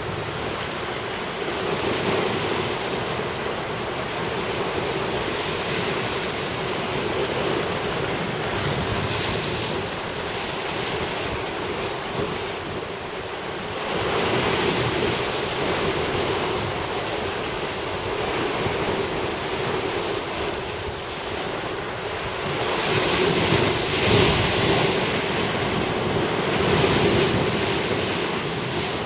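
Sea surf washing and breaking against a rocky reef, with wind buffeting the microphone; the noise swells louder a few times as waves come in.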